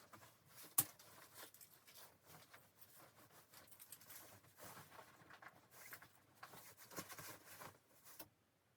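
Faint irregular rustling with scattered soft clicks, one sharper click about a second in; it stops shortly before the end.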